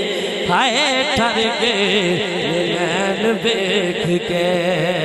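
A man singing a Punjabi naat into a microphone through a sound system, in a wavering, ornamented melodic line. A new phrase begins about half a second in.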